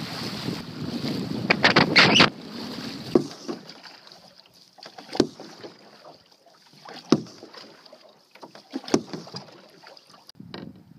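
Small waves washing over shore rocks, with wind on the microphone, for the first two seconds or so. Then canoe paddle strokes, a short sharp sound about every two seconds.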